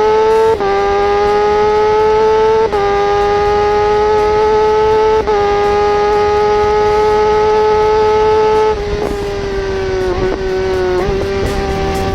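Inline four-cylinder motorcycle engine running high in its rev range, its high-pitched note creeping up and briefly dipping at quick gear changes three times in the first five seconds. It then drops somewhat in loudness, with a few short dips in pitch near the end.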